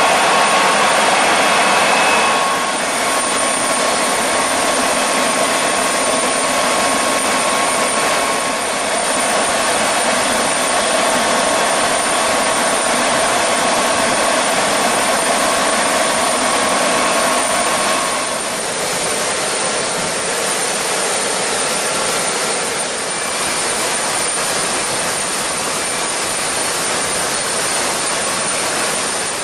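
Airliner turbofan jet engine running steadily: a continuous rush of air with a steady whine over it. The whine shifts a little about two seconds in and again past the halfway mark.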